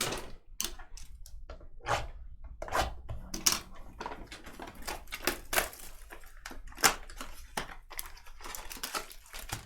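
Trading cards and their packaging being handled: an irregular run of sharp clicks, taps and short crinkling rustles.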